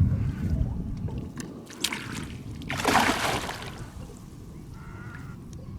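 Water splashing and sloshing beside a boat as a hooked fish thrashes at the surface, with one loud splash about three seconds in.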